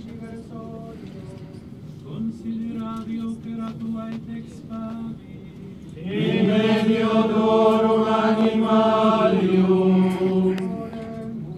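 Liturgical chant: one voice chants a prayer on a nearly unchanging reciting tone, then about halfway through a group of voices sings a louder response together in long held notes, ending about a second before the end.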